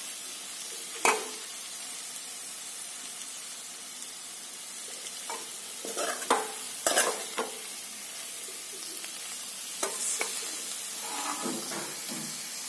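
Potato, capsicum and onion sabzi sizzling steadily in oil in a steel kadhai, while a steel ladle stirs it, scraping and clinking against the pan: once about a second in, several times between six and seven and a half seconds, and again near ten seconds.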